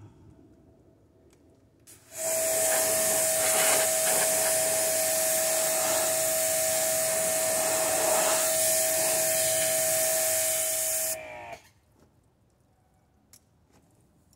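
An electric motor driving a rush of air, like a blower or shop vacuum, switched on about two seconds in. It runs steadily for about nine seconds with a steady whine, then is switched off, the whine dropping briefly in pitch as it winds down.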